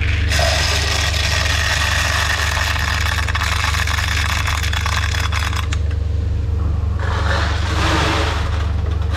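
Heavy farm machinery running steadily with a deep hum. A dense rattling, scraping noise rides over it for the first five seconds or so and returns briefly near the end.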